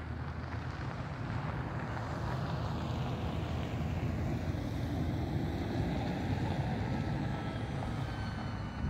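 Steady low rumble of wind on the microphone mixed with distant traffic, with a faint thin whine coming in near the end.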